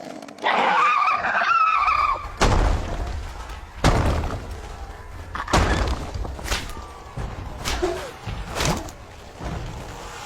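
Cartoon soundtrack effects: a short high, wavering squeal, then a run of about five loud crashes and thumps over a low rumble.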